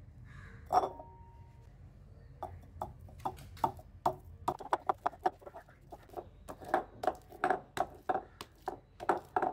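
Boiled potatoes being pounded with a masher in a bowl: one louder knock about a second in, then a run of short soft knocks, about three to four a second.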